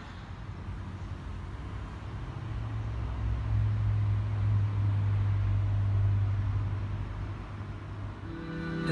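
A low steady hum over background noise, swelling for several seconds in the middle and then fading. Music starts just before the end.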